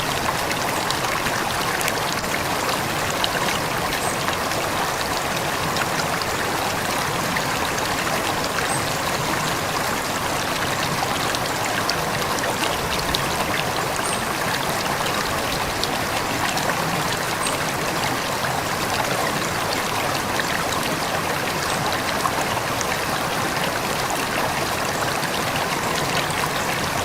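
A shallow river or stream flowing steadily, water babbling and trickling over stones as an even rushing wash with small splashes throughout.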